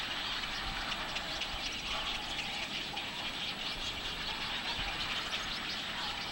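Chorus of birds calling from the nests of a rookery: a dense, unbroken chatter of many rapid, overlapping calls, with a low rumble underneath.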